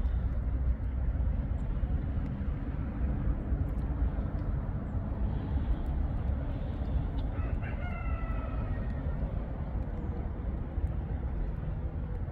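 A rooster crows once, a single drawn-out call of about two seconds starting around seven seconds in, over a steady low rumble.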